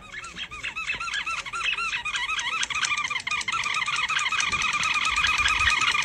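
A dog's squeaky toy squeaked over and over as the dog chews on it: a fast run of high rising-and-falling squeaks, several a second, growing louder.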